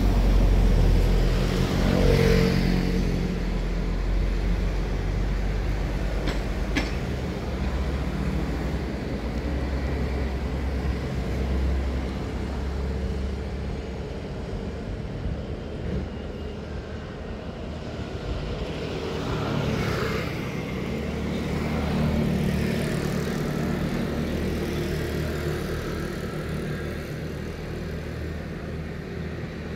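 Road traffic: motor vehicle engines running past, loudest in the first few seconds and again about 22 seconds in.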